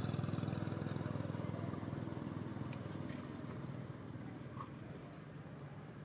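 A small engine running with a low, steady drone that slowly fades away, with a few faint ticks.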